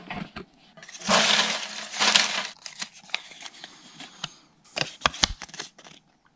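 Small folded slips of paper rustling in a metal tin as a hand rummages through them, then a run of sharp crackles and clicks as one slip is picked out and unfolded.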